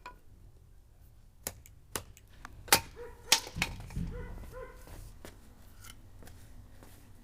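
Thin, light firewood being split by hand, with about four sharp cracks in the first half.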